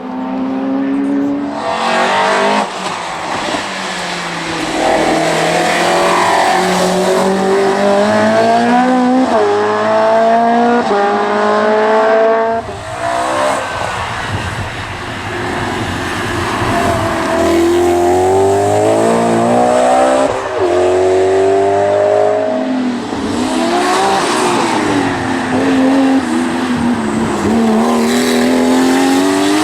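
Hill-climb race cars accelerating hard up the course, the engine note climbing in pitch and dropping back at each upshift, many times over.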